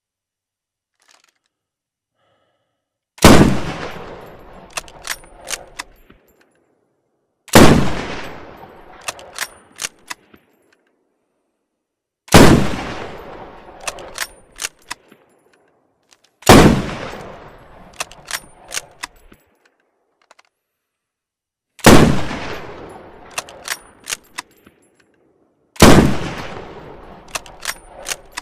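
C14 Timberwolf bolt-action sniper rifle firing six single shots, about four to five seconds apart, each shot ringing out with a long fading tail. A quick run of sharp metallic clicks follows each shot as the bolt is worked to chamber the next round.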